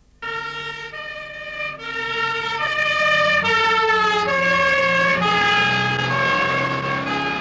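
Two-tone siren (German Martinshorn) of an emergency-doctor van, alternating between a low and a high note a little under once a second, with the vehicle's engine and road noise underneath. It cuts in suddenly and grows louder over the first couple of seconds.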